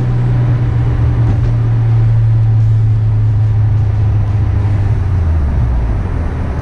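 Mitsubishi Evo 8's turbocharged 4G63 four-cylinder engine heard from inside the cabin, running off boost at light throttle with the boost gauge on vacuum, over tyre and road noise. Its steady hum drops in pitch about four to five seconds in as the revs fall.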